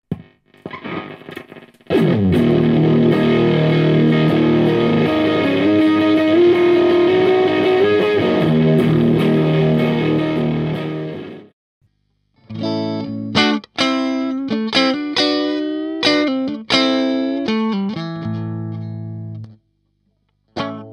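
Electric guitar with humbucker pickups played through two stacked IT11 Audio Honk Machine overdrive pedals, Tube Screamer-style. A few light notes lead into a held, overdriven chord that rings for about ten seconds with a bending melody over it and is cut off. After a short pause comes a run of separate struck chords, each left to ring and fade, ending shortly before the end.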